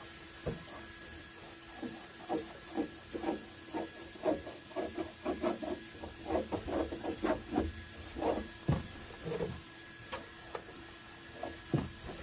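Repeated short, irregular scraping and rubbing strokes as hardened PETG is cleaned off a 3D printer's nozzle, with a steady hum underneath.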